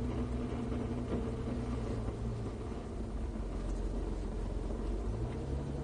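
Porsche 911 991.1 GT3's 3.8-litre flat-six running at low revs as the car rolls slowly, heard from inside the cabin. The engine note eases off about two seconds in and picks up a little near the end.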